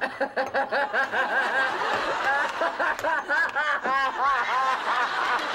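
A woman laughing: a long, rapid snickering cackle of short, high-pitched bursts, about five a second, with a louder burst near the middle.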